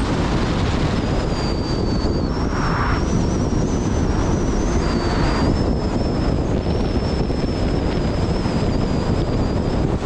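Car under way on a road: a steady rush of engine, tyre and wind noise, with a faint thin high whine that wavers slightly in pitch.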